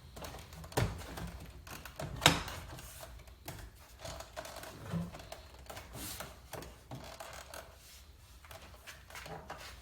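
Plastic car door trim panel knocking and clicking as it is handled and its clips are pressed into the door: two sharp clicks in the first few seconds, then scattered lighter taps.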